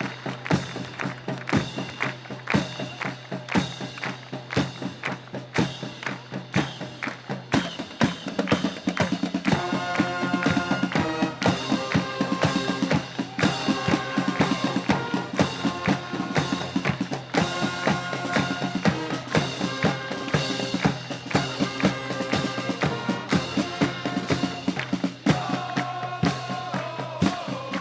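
Marching wind band playing: the percussion section drums steadily with snare and bass drum, and sustained brass and woodwind chords come in about ten seconds in.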